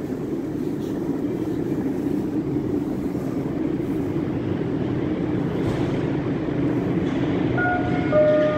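Metro train running on the Moscow Metro's Nekrasovskaya line: a steady rumble that slowly grows louder, with a few short tones stepping down in pitch near the end.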